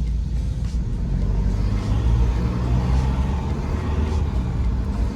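Car driving, heard from inside the cabin: a steady low rumble of engine and road noise with tyre hiss.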